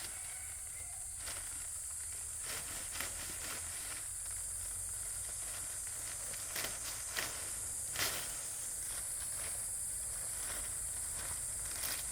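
Steady high-pitched insect drone, with scattered light crackles and rustles.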